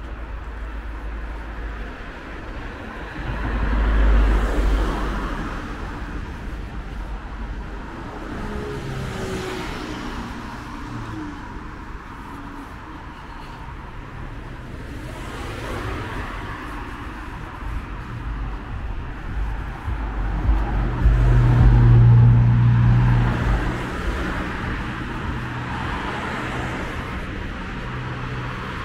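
City street traffic: cars passing one after another, their tyre and engine noise swelling and fading. The loudest passes come about four seconds in and around twenty-two seconds in, the second with a low engine hum.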